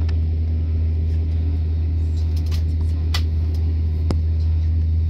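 Steady low drone inside the cabin of an Airbus A320, with a few faint clicks and a sharper tick about four seconds in.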